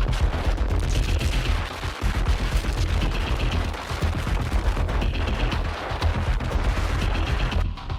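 Rough sea: heavy waves and wind buffeting the microphone, a dense crackling rumble with no let-up. A faint higher sound repeats about every two seconds.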